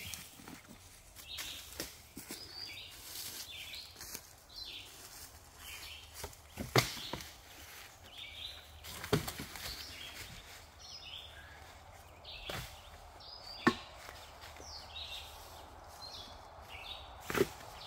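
Footsteps through forest litter with dry sticks snapping sharply about five times, over birds singing in the trees.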